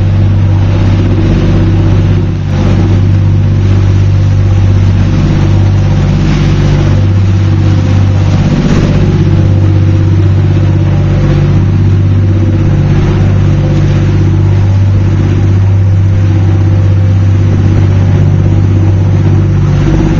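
Boat engine running steadily under way: a loud, even drone with a constant low pitch, over a hiss of wind and water.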